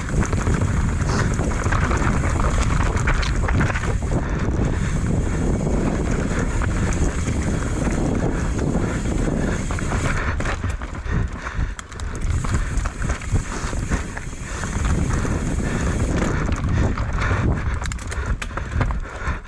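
Commencal Meta AM 29 mountain bike descending a rough trail at race speed: tyres on dirt and rock, with the chain and frame rattling in quick clicks and knocks, over heavy wind rumble on the microphone.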